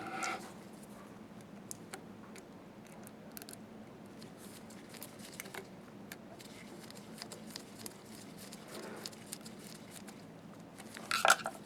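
Faint, scattered light clicks and taps of small metal parts and hand tools being handled while screws on a slit lamp are snugged up, with a couple of louder clicks near the end.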